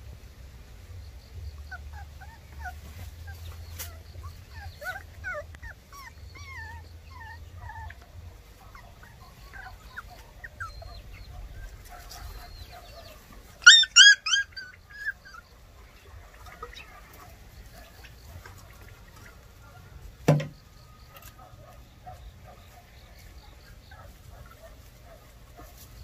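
Baekgu puppies whimpering and squeaking in short rising and falling cries, then a burst of loud yelps about fourteen seconds in. A single sharp knock comes about twenty seconds in.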